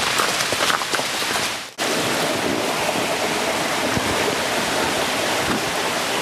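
Shallow stream running over rocks, a steady rush of water that starts after a sudden cut about two seconds in. Before the cut there is a noisy patter of light taps.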